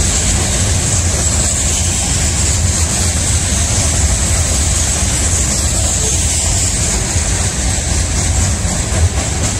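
Freight train of hopper cars rolling past: a loud, steady rumble of steel wheels on the rails with a constant high hiss above it.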